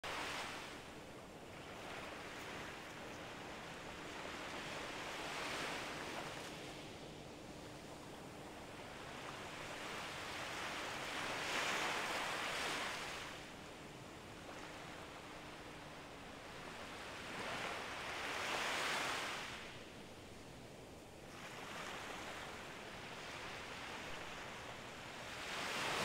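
Gentle surf: small waves breaking and washing up a sandy beach, the sound swelling and fading about every six to seven seconds.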